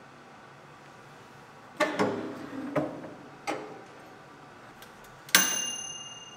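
SilverCrest toaster oven being loaded: a few clunks and clinks as a glass dish goes onto the metal rack, then the door shuts with a sharp bang about five seconds in that rings metallically for about a second.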